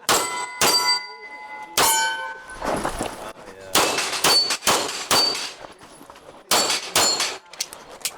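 Pistol shots in an uneven string, each hit on a steel target followed by a bright metallic ring.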